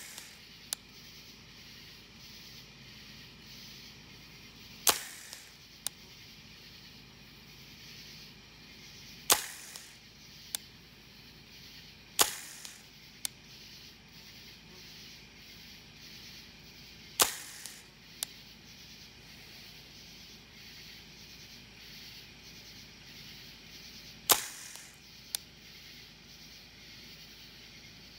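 Tippmann M4 airsoft rifle firing single shots: five sharp reports spaced several seconds apart. Each is followed about a second later by a faint short tick.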